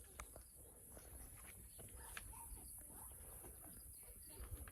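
Near silence: faint outdoor ambience with a steady high hiss and a few soft clicks.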